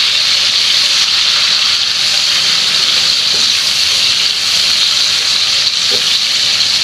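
Shrimp and green peas frying in hot oil in a frying pan, sizzling with a loud, steady hiss.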